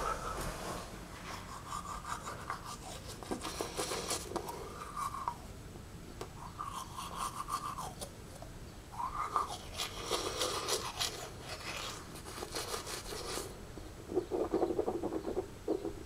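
A person breathing rapidly and heavily close to the microphone, hyperventilating in uneven rasping bursts, with the strongest bursts about ten seconds in and again near the end.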